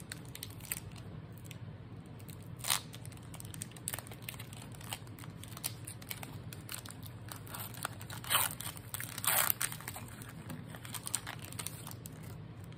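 Foil wrapper of a Pokémon card booster pack being torn open and crinkled by hand, with sharper rips about three seconds in and twice around eight to nine seconds in, over a steady low hum.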